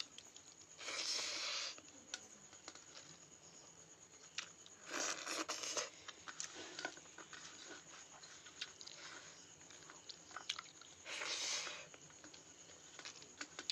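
Eating rice and potato curry by hand from a steel plate: three short bursts of wet, noisy mixing, chewing and squishing, with small clicks in between.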